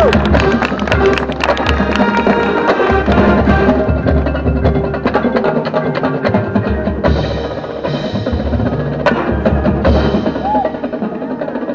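Marching band percussion playing a busy passage: rapid drum and wood-block strikes over bell-like mallet percussion, with recurring low bass-drum hits.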